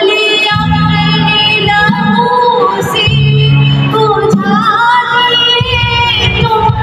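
A woman singing into a microphone with a live band of electric guitars and drums, amplified through PA speakers, holding long notes over a steady bass line.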